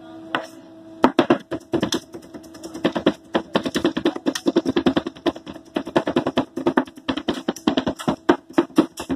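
Knives chopping fried chicken rapidly on a plastic cutting board: a quick, uneven run of sharp knocks, several a second, starting about a second in.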